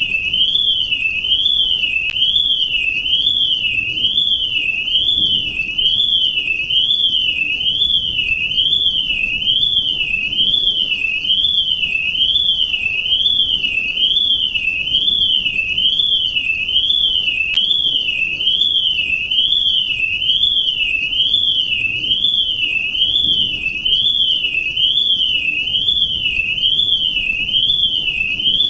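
Electronic alarm tone warbling without a break, its pitch sweeping smoothly up and down about once a second.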